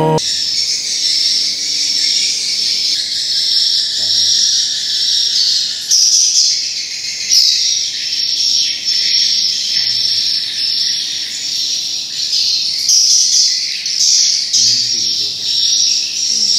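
Edible-nest swiftlets calling inside a swiftlet house: a dense, steady high chirping that rises and falls a little in loudness.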